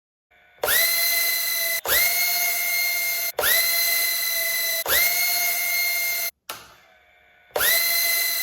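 Tiny whoop micro drone's brushless motors spinning up to full throttle in short bursts: a high whine that sweeps quickly up in pitch, holds steady for about a second and a half, and cuts off, repeated four times with a fifth starting near the end.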